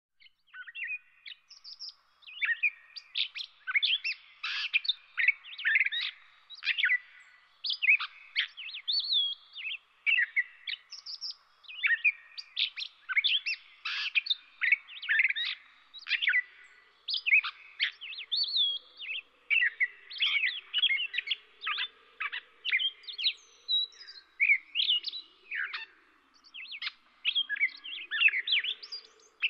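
A chorus of songbirds chirping and singing continuously in quick, overlapping calls and trills. About halfway through, a low, wavering call joins in beneath them.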